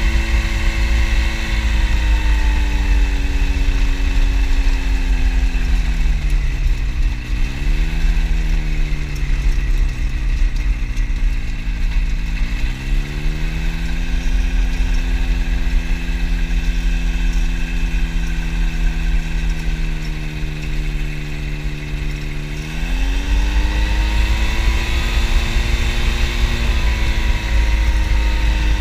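Phantom X1 ultralight's two-stroke engine and propeller running at taxi power on a grass strip. The engine note drops about six seconds in and blips briefly, rises again around thirteen seconds, holds steady, then rises once more near twenty-three seconds, with a constant low rumble underneath.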